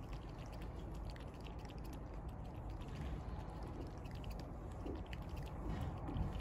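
A cat lapping milk from a steel bowl: quick, irregular small clicks, several a second, over a steady low rumble.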